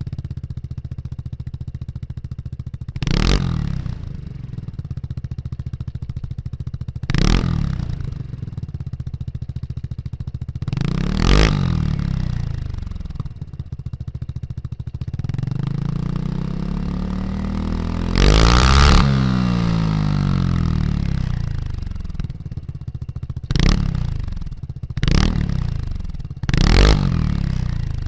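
Piaggio Vespa GTV 300's single-cylinder engine breathing through a Zard slip-on racing exhaust, idling and being revved. Three short blips come a few seconds apart, then a longer rev climbs and falls back around the middle, then a run of four quick blips near the end.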